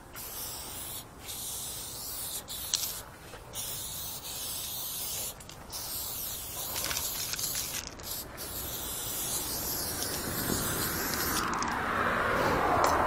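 Aerosol spray paint can hissing in long bursts with short breaks as graffiti outlines are sprayed on a wall. Traffic noise swells and grows louder near the end.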